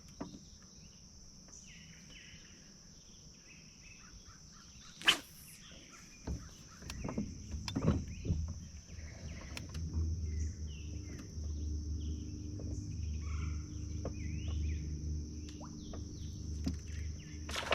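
Swamp ambience: a steady high-pitched insect drone with scattered bird chirps. There is a sharp knock about five seconds in, and a low rumbling hum joins from about halfway.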